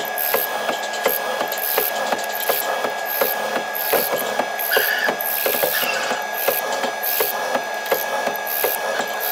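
Chisel mortising machine cutting a mortise in a hardwood beam: the chisel chops into the wood in a steady rhythm of about three strikes a second, over a constant high machine whine.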